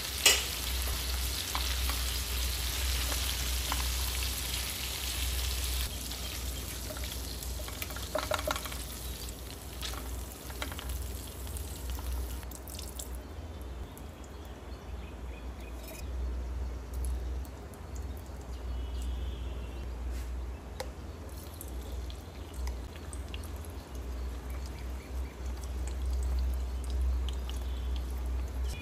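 Food frying in hot oil in a pan, a steady sizzle with a sharp click right at the start and a few metallic clinks about eight seconds in. The sizzle fades after about thirteen seconds, leaving a softer crackle over a low hum.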